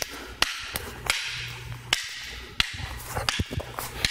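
Fighting sticks clacking against each other as strikes are fed and blocked at full speed: about ten sharp, irregularly spaced cracks, bunched closer together in the second half, with the swish of the sticks through the air between them.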